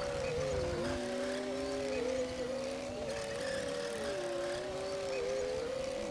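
Komatsu D60P bulldozer running under load, a steady high whine over the engine with lower tones that sag in pitch and recover about twice.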